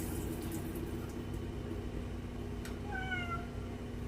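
A cat meows once, a short, slightly falling call about three seconds in, over the steady low hum of a new top-load washing machine running. A couple of sharp clicks are heard.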